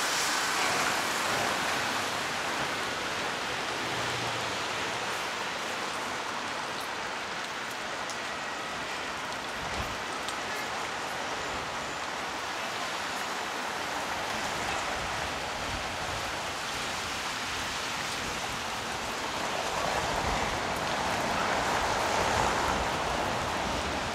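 Steady hiss of heavy rain falling on pavement, with a louder swell of noise about twenty seconds in.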